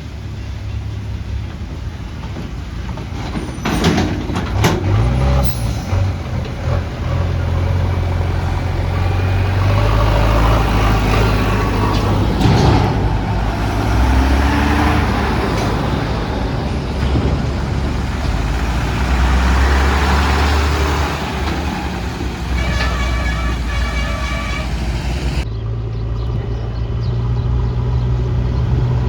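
Heavy diesel engine of a JCB 3DX backhoe loader working, its speed rising and falling under load, with a few sharp metallic clanks about four to six seconds in.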